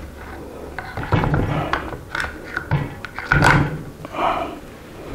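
Irregular clicks and clunks of an HK G36 rifle being reassembled, the bolt being worked into line and slid into the receiver.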